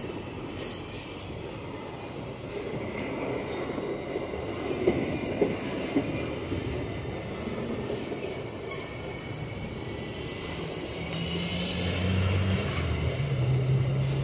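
Freight train of empty iron-ore gondola wagons rolling past, a steady rumble and rattle of wheels on the rails. There are three sharp clanks about five to six seconds in, and a faint high wheel squeal near the end.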